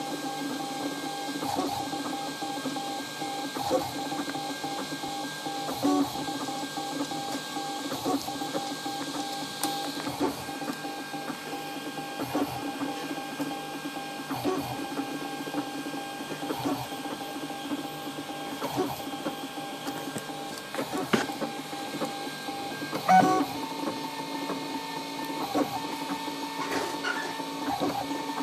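RepRap Prusa i3 3D printer printing: its stepper motors whine in steady tones as the print head traces the layers, with short clicks as the moves change. A louder knock comes about three quarters of the way through, after which the main tone steps up in pitch.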